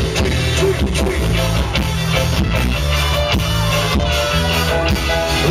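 Live band playing loud amplified music: electric guitar over a steady bass line, with drum hits.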